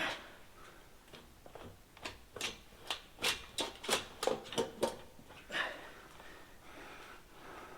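Hand tools working on an engine: a run of about a dozen sharp clicks and knocks at uneven intervals, followed by a brief scrape.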